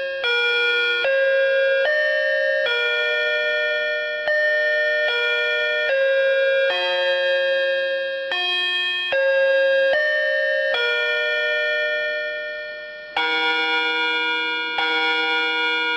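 Nokia T26 tablet playing one of its built-in ringtone or alarm tones: a slow melody of electronic bell-like chime notes, about one note a second. A longer note fades out, and a fuller-sounding chime tone starts about thirteen seconds in.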